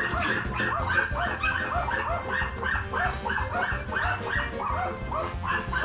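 Dogs barking in a rapid, continuous run, about three to four short barks a second.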